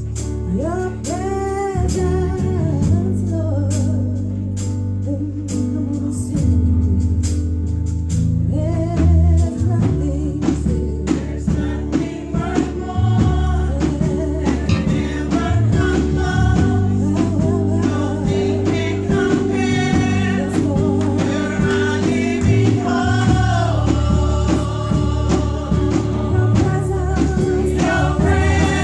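Live gospel singing by a group of women vocalists, voices soaring and wavering in pitch over instrumental accompaniment with steady low bass notes and frequent percussive strokes.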